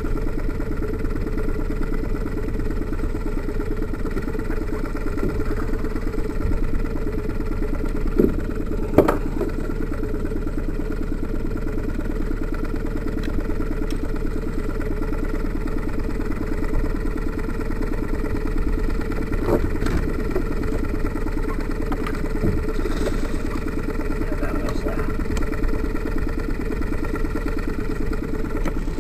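Boat's outboard motor idling steadily, with a couple of sharp knocks about eight and nine seconds in.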